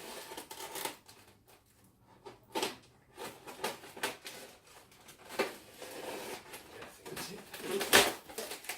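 A statue's cardboard box and packing being handled and unpacked: scattered rustling, scraping and light knocks, with one sharp knock near the end.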